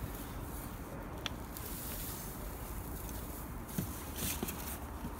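A garden fork worked through loose soil, giving a few scattered soft knocks and scrapes over a steady outdoor background hiss.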